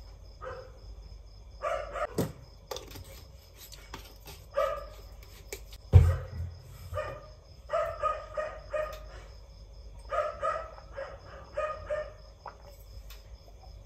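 A dog barking in short runs of several barks, broken by pauses, with a single loud thump about six seconds in.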